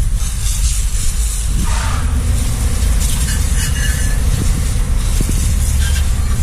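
Pressure washer spraying a motorcycle: a steady high hiss of the water jet over a continuous low rumble.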